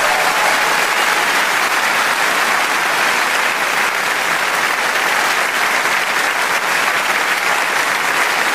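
Large audience applauding steadily, with a last held note of the song fading out in the first second.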